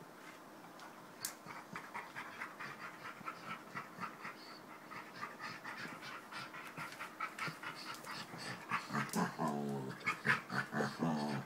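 Two Labrador retrievers play-fighting while lying down, panting rapidly at about four or five puffs a second. Near the end come two short grumbling growls, the loudest sounds.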